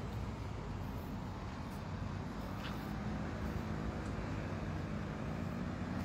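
Steady road traffic rumble from cars on a city road, with a vehicle's engine hum rising into it about halfway through.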